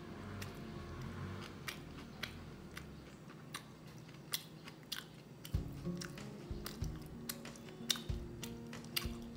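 A person biting and chewing food close to the microphone: irregular, sharp little crunching clicks over quiet background music.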